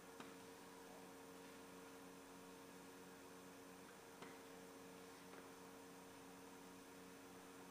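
Near silence: room tone with a steady low electrical hum and a couple of faint clicks, one just after the start and one about four seconds in.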